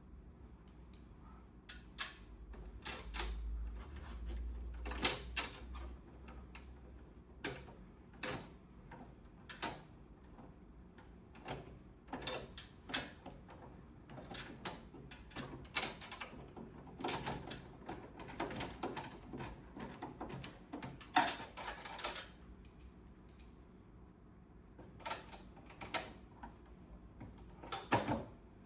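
Irregular clicks and knocks of plastic parts being handled on an AUX air conditioner's indoor unit housing, some in quick runs, a few louder ones near the middle and near the end.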